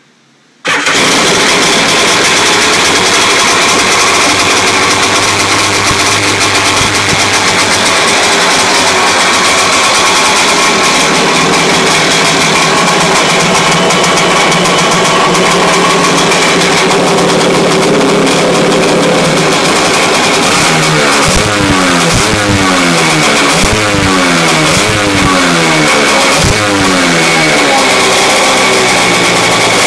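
Kawasaki 650SX jet ski's freshly rebuilt two-stroke twin, with an aftermarket Coffman's expansion-chamber pipe, firing up suddenly about half a second in on its first start after the rebuild and running loud and steady. About two-thirds of the way through, the throttle starts being blipped over and over, the engine revving up and dropping back roughly once a second.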